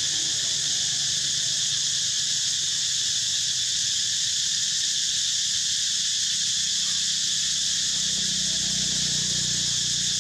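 A steady, high-pitched chorus of insects buzzing without a break, over a faint low rumble.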